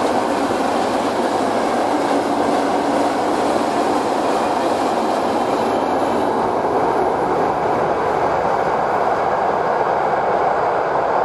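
Mixed freight train rolling past, its wagons' wheels on the rails making a loud, steady rumble with some clickety-clack.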